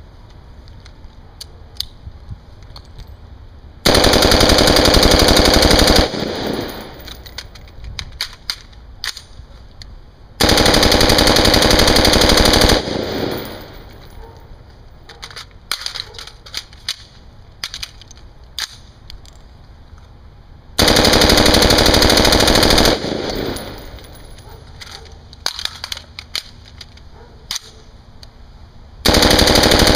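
AR-pattern rifle fired on full auto in four long bursts of about two seconds each, the last one running on past the end.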